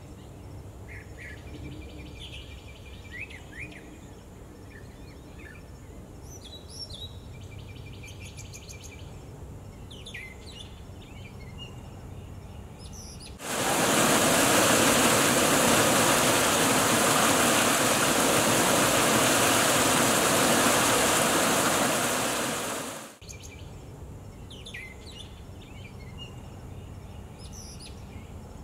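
Birds chirping over a low outdoor rumble. In the middle comes about ten seconds of loud, steady rushing water as a fountain's water curtain pours over its rim into the basin; it starts and stops abruptly, then the chirping returns.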